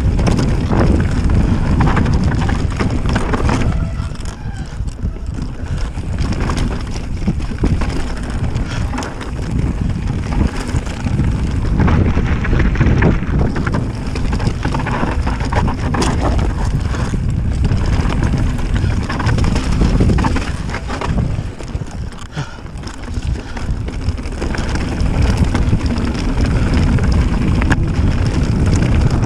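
Wind rushing over the microphone as an enduro mountain bike descends a rocky trail at speed, with tyres crunching over loose stones and the bike rattling and clattering over bumps.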